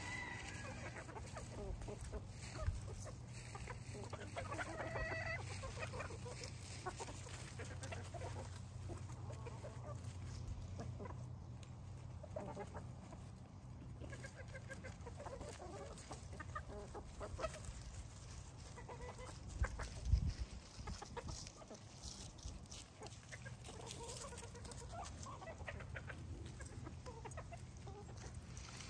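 Backyard chickens clucking, with scattered short calls. A dull thump about twenty seconds in, over a faint steady low hum.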